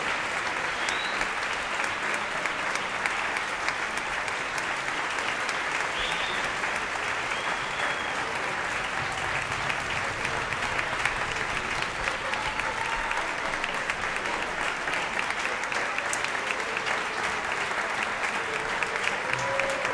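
Large concert-hall audience and orchestra applauding: dense, even clapping that holds steady throughout, with a few faint voices calling out over it.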